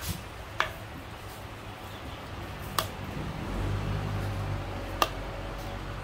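Three short, sharp clicks and knocks of utensils, about two seconds apart, as green papaya salad is mixed in a clay mortar. A steady low hum comes in a little past halfway.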